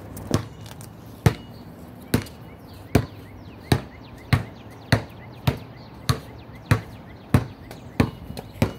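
A basketball bouncing over and over at a steady pace, about one bounce every three-quarters of a second, the bounces coming slightly quicker toward the end.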